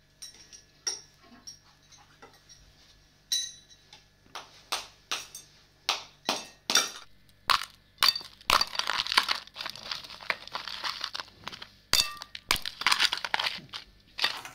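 Chunks of ice being struck and broken up with a metal spoon in an aluminium bowl. There are scattered sharp clinks and knocks at first, then hard strikes coming more often from about four seconds in, with long stretches of dense crunching and crackling in the second half.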